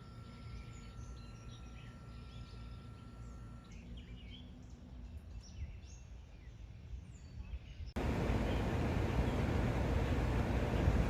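Faint outdoor ambience with scattered short bird chirps over a low rumble. About eight seconds in it cuts suddenly to a louder, steady, wind-like noise.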